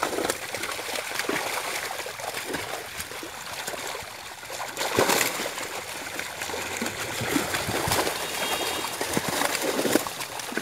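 Large fish thrashing in a hauled-in net in shallow water: continuous churning and splashing with sharper splashes throughout, the loudest about five seconds in and again near the end.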